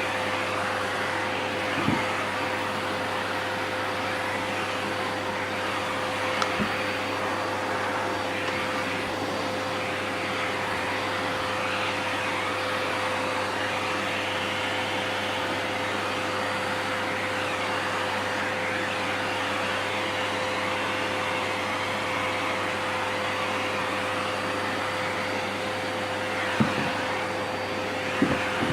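Vacuum cleaner running steadily, a constant whine over its airflow noise, with a few brief knocks.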